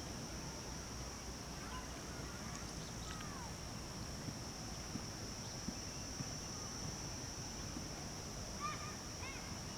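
Outdoor nature ambience: a steady high-pitched insect drone, with a few faint bird calls, one of them with a few quick repeated notes near the end.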